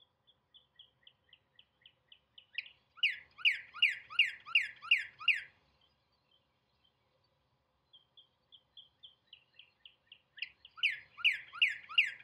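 Northern cardinal singing twice. Each song opens with a soft run of short notes that speeds up, then ends in about seven loud, slurred notes that fall in pitch. The second song starts about two-thirds of the way through.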